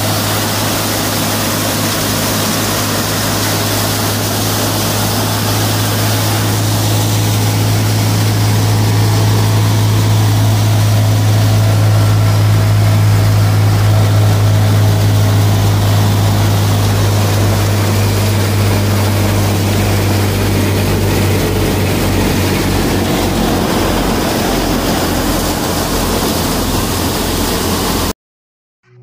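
Kubota MU5501 55 hp diesel tractor powering a Punni multi-crop thresher at work: a steady, loud engine drone with the thresher's rushing whirr over it. It cuts off suddenly near the end.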